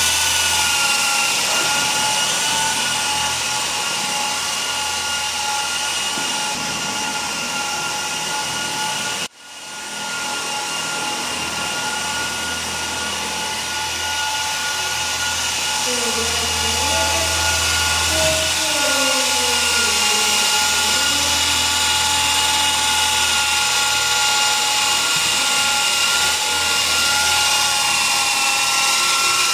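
ESky Honey Bee V2 fixed-pitch electric RC helicopter in flight: a steady high whine from its motors and rotors, holding an even pitch.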